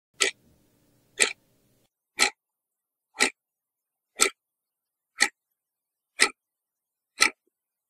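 Clock ticking: eight sharp ticks, evenly one a second.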